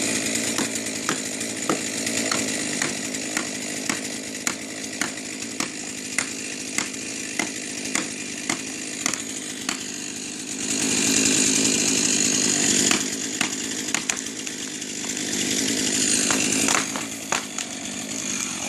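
Chainsaw running steadily, with a regular sharp click about twice a second through the first half. It gets louder about halfway through, and again near the end.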